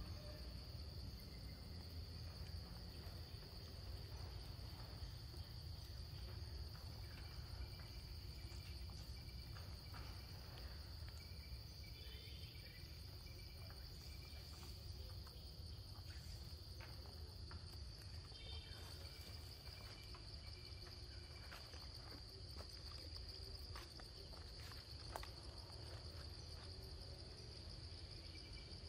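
Forest insects droning steadily at one high pitch, a continuous background chorus.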